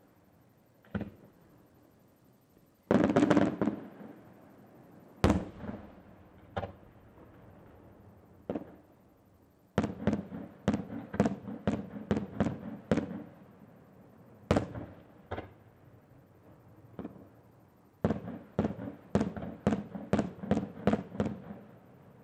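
Aerial fireworks shells bursting: single sharp bangs a second or two apart, a dense crackling cluster about three seconds in, and two rapid volleys of many reports, one about ten seconds in and another near the end. Each bang trails off in an echo.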